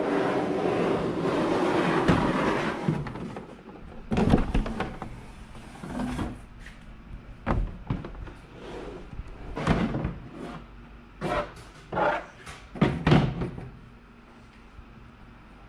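A box being opened and its contents handled: rustling for about three seconds, then a string of irregular knocks and scrapes that stops near the end.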